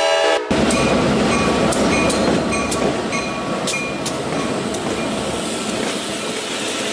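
A train horn chord cuts off about half a second in, then a train passes close by, running loud and steady with rail clicks and brief high tones from the wheels.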